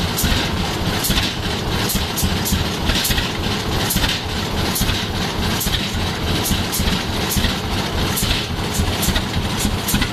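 1921 Rumely OilPull tractor engine running steadily at idle, with a slow, regular exhaust beat.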